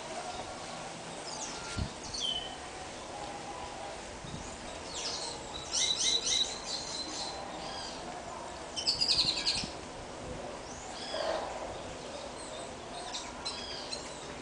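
Small wild birds chirping in quick clusters of high calls, the loudest runs about five to seven seconds in and again around nine seconds.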